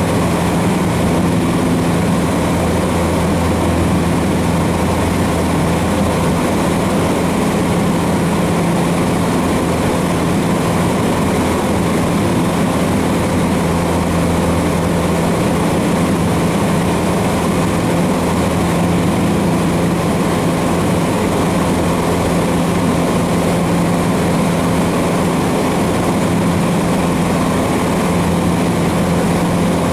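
Cessna 150's four-cylinder Continental O-200 engine and propeller heard from inside the cabin in flight: a steady, loud drone with a constant-pitch hum that does not change.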